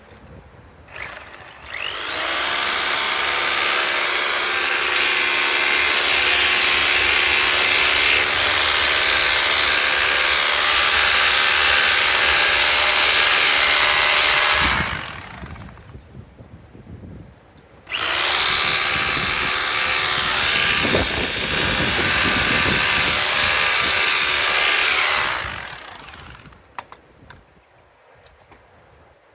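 Electric drill running in two long, steady runs of about thirteen and seven seconds, boring out a hole in a wall to take the phone cable.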